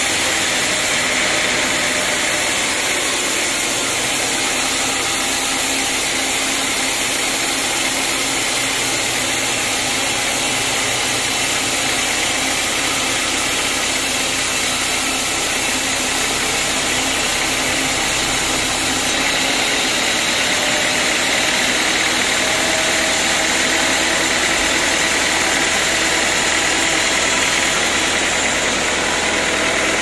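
Band sawmill running steadily: its drive and spinning blade keep up an even, loud mechanical noise with a high hiss.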